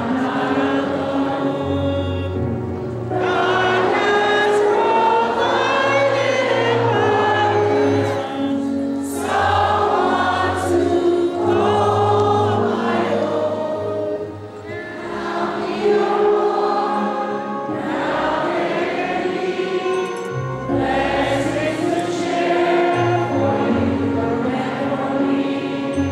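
A large congregation singing a hymn together, with instrumental accompaniment.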